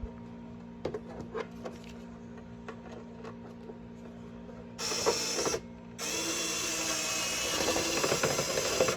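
Small clicks of screws and case parts being handled, then a power screwdriver runs in a short burst about five seconds in and again steadily for the last three seconds, driving a case screw that misses its hole.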